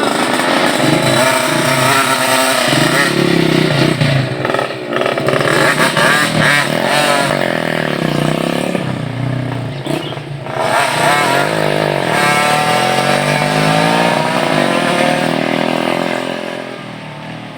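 Motorbike engine running, its pitch rising and falling repeatedly as the throttle is opened and eased, dropping back near the end.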